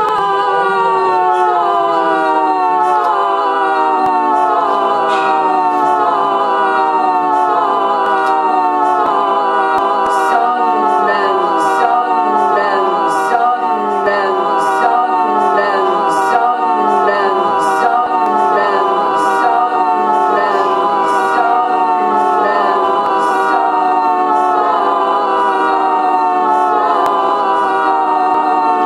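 Layered voice loops played back through an Electrix Repeater looper, stacking into a dense choir-like drone. All the pitches slide slowly and steadily downward together, with short hissing ticks recurring throughout.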